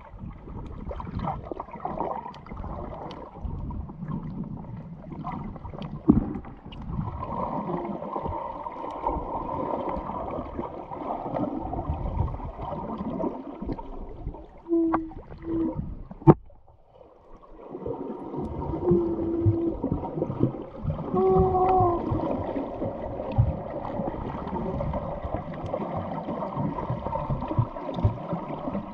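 Muffled underwater sloshing and gurgling of water around the camera, with a few short pitched squeaks. A sharp click comes about two-thirds of the way through, then a brief lull before the water noise builds again.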